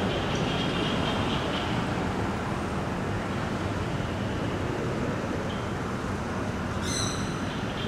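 Steady outdoor background noise with no clear single source, and a short high-pitched call about seven seconds in.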